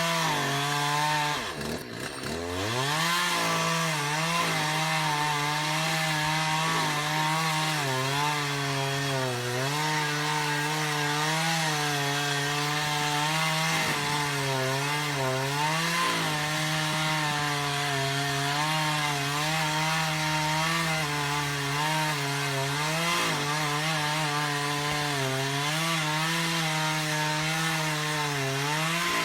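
Stihl two-stroke chainsaw running at high revs, cutting into ponderosa pine, its engine note dipping under load from time to time. About two seconds in the revs fall off sharply and climb back up.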